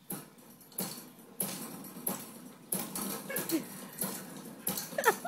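A Jolly Jumper baby bouncer creaking and clicking on its spring as a baby bounces in it, a sharp click about every two-thirds of a second. A brief high-pitched call with a falling pitch comes near the end.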